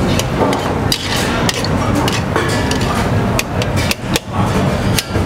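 Wooden spoon knocking and scraping against a stainless steel saucepan as chopped tomatoes are broken up in olive oil, with many irregular knocks.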